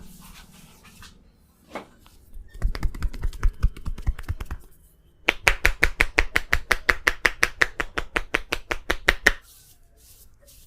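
Rapid rhythmic hand strikes of a percussive massage (tapotement) from a barber's hands. A duller run of about two seconds comes first, then a crisper run of about four seconds at roughly seven strikes a second.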